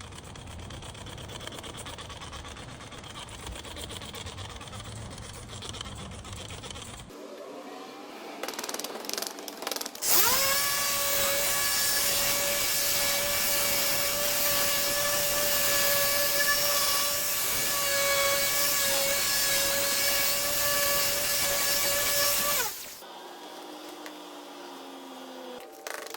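Electric drill polishing a headlight lens, its motor spinning up about ten seconds in, running at a steady high whine for about thirteen seconds, then winding down. Before that there is quieter low noise and a few short starts of the motor.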